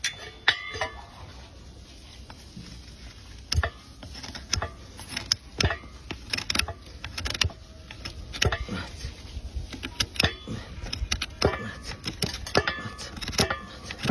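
Farrier's metal tools working a very hard horse hoof: irregular sharp clicks and knocks, some followed by a short metallic ring.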